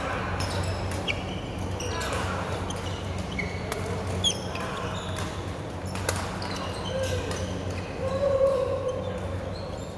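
Badminton play on several courts: sharp racket strokes on shuttlecocks and short high squeaks of shoes on the court mats. Players' voices carry through the hall, one calling out loudly about eight seconds in.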